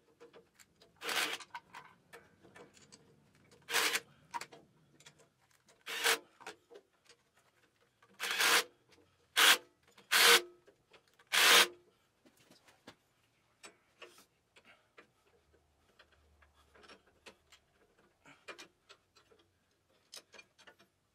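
Cordless power driver run in seven short trigger pulls, mostly in the first half, driving a fastener on the garden tractor's rear PTO shaft. After that come faint light ticks and rubbing from hand work on the parts.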